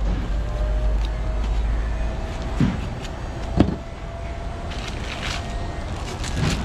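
A low rumble that drops away about two seconds in, two short sharp sounds in the middle, and a plastic bag rustling near the end.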